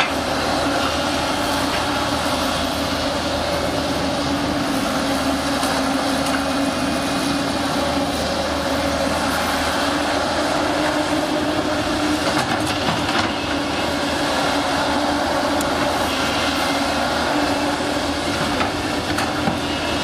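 JCB crawler excavator's diesel engine running steadily under load as the arm and bucket work the soil, with a steady low hum.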